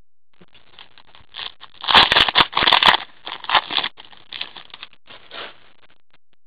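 Foil trading-card pack wrapper being torn open and crumpled by gloved hands: a run of crackling rustles, loudest about two seconds in, then trailing off in smaller crinkles.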